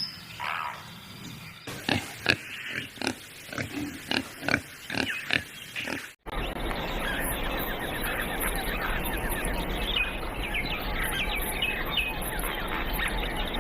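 An animal's calls: a run of short, sharp calls for about six seconds, then an abrupt cut to a steady noisy background with faint, quick chirps.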